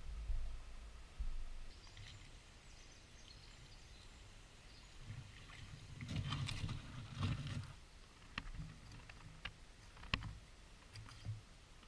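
Footsteps over creek-bed gravel and stones, with large leaves brushing against the legs around the middle, then a few sharp clicks of stones knocking underfoot.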